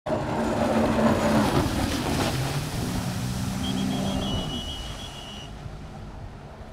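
Racing jet ski engine running hard, loudest in the first couple of seconds, with a thin high whine over it for a moment. About four and a half seconds in the engine note drops away as the craft carves a turn, leaving a fainter drone.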